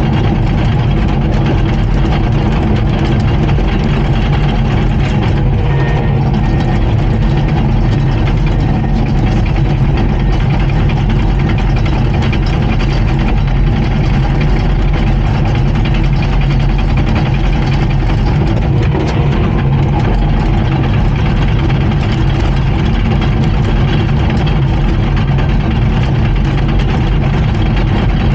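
Komatsu D39PX bulldozer's diesel engine running steadily at a constant level, with a deep, even engine note.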